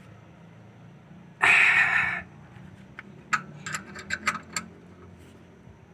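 Scattered sharp metallic clicks of a wrench working the brake caliper's lock bolt, with a short burst of noise about a second and a half in.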